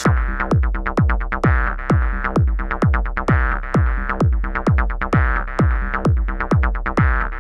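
Electronic background music with a steady kick-drum beat over sustained synthesizer chords.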